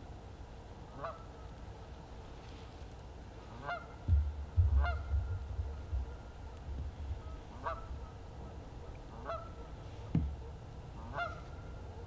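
Distant bird calls: about six short calls spaced unevenly, a second or more apart, over a quiet background. A low rumble comes in about four seconds in and lasts a couple of seconds, and a short thump follows about ten seconds in.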